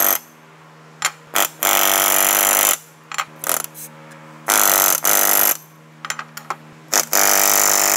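Pneumatic rivet gun hammering solid aircraft rivets through sheet metal against a bucking bar, in a rapid buzzing rattle. It gives two short taps about a second in, then three runs of about a second each.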